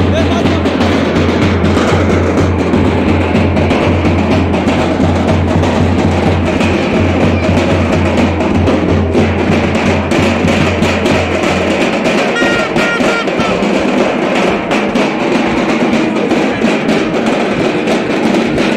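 Loud music driven by heavy drumming, with a deep steady bass note that drops out about twelve seconds in.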